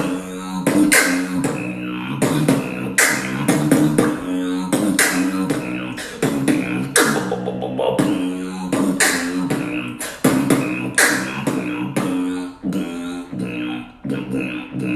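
Vocal beatboxing: a steady beat of mouth-made percussion, with sharp snare-like hits about every two seconds, over a hummed low bass drone.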